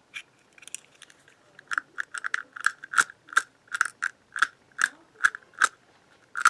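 Zippo lighter's newly fitted repair spark wheel being thumbed again and again against the flint: a quick scratchy strike two or three times a second, starting about two seconds in after a few faint handling clicks. The wheel is still a little stiff and needs breaking in.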